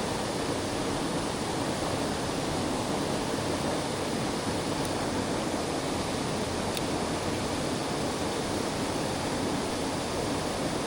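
Steady rushing of a mountain stream's water over rocks, a constant even wash. Two faint ticks sound about halfway through.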